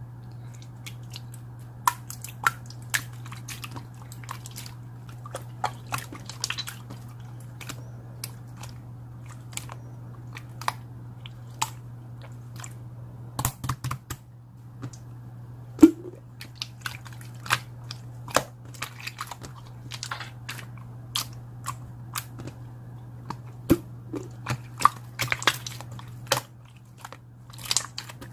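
Marbled slime being pressed and stretched by hand, giving off irregular sharp clicks and pops over a steady low hum.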